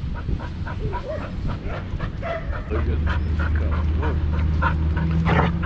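Pit bull panting hard right at the harness-mounted microphone, about four breaths a second, with a few short whimpers and one short bark near the end. A low rumble of the mic rubbing on the harness runs under it during the second half.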